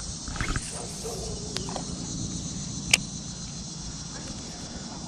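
Steady chorus of insects in summer dusk, a constant high chirring-like haze, with one sharp click about three seconds in.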